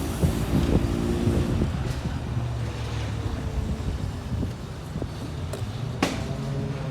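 Single-seater race car engines running on track, with small rises and falls in pitch in the first second or two and then a steadier low note, and wind noise on the microphone. A single sharp crack comes about six seconds in.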